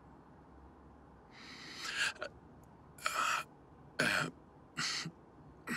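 A man's voice making four or five short, breathy sounds with gaps between them, without clear words.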